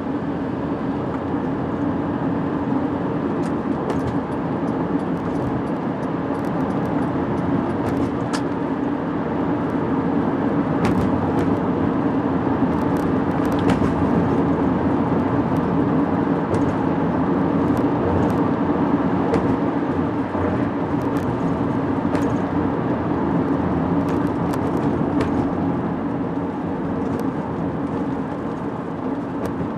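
Steady road noise heard inside a car moving at highway speed: tyre and engine drone on a wet road, with scattered light ticks.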